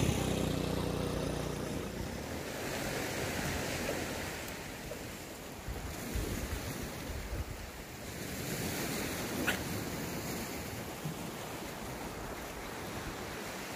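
Sea waves washing on the shore, rising and falling, with wind on the microphone. A passing vehicle's engine fades away in the first couple of seconds, and there is a single sharp click about nine and a half seconds in.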